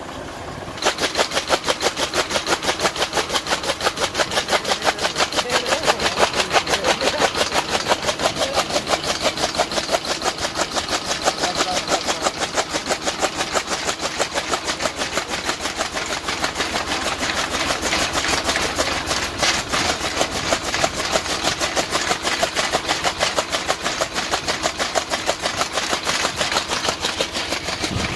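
Tractor-PTO-driven flywheel chaff cutter chopping green fodder: a rapid, even clacking of the blades cutting through the stalks, starting abruptly about a second in.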